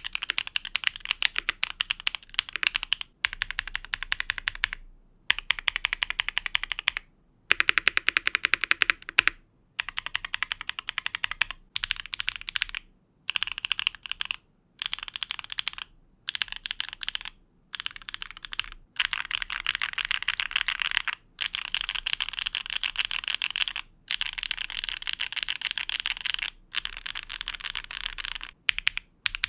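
Typing on a plateless, gasket-mounted 65% keyboard (MoeeTech Glitter65 R1) with lubed Akko Cream Blue Pro V3 switches and double-shot ABS keycaps: fast runs of keystrokes in stretches of a few seconds, broken by short silent gaps. The flexing plateless PCB gives a softer typing sound.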